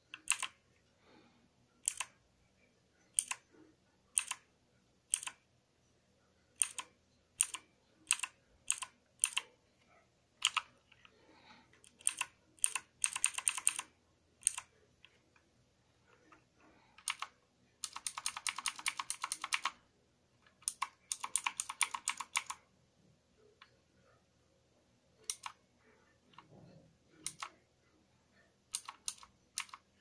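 Keystrokes on a Redragon K580 VATA mechanical keyboard: single key presses every second or so, broken by three quick flurries of rapid keystrokes around the middle.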